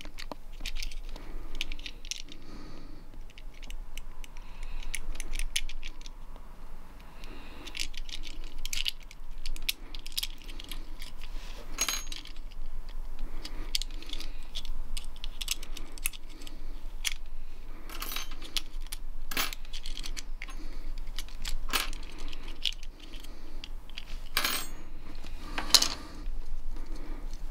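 Small plastic and metal parts of a GFCI receptacle clicking and scraping as it is pried apart with a small screwdriver: irregular light clicks throughout, with a few sharper snaps in the second half.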